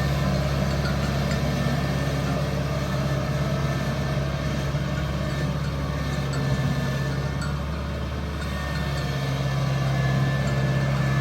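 Rice combine harvester's diesel engine running steadily, easing off slightly about eight seconds in and picking back up near the end.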